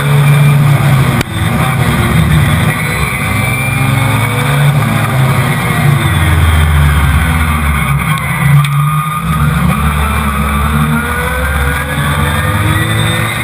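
Rallycross race car's engine running hard under racing load, heard from a camera mounted on its bonnet, its revs rising and falling through gear changes. The engine note briefly drops about a second in, falls off around eight seconds in, then climbs again.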